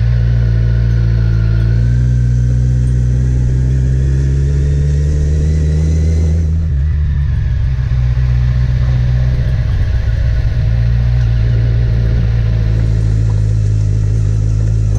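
Car engine and road noise while driving. The engine note rises gradually, drops about six and a half seconds in, then holds steady.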